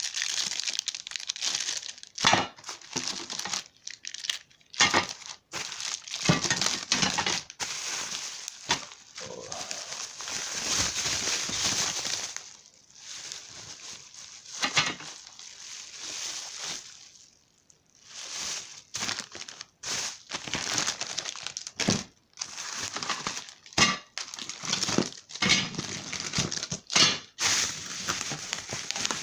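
Plastic packaging crinkling and rustling in irregular bursts as steel TV wall-mount brackets are unwrapped and handled, with scattered sharp knocks. There is a quieter stretch in the middle.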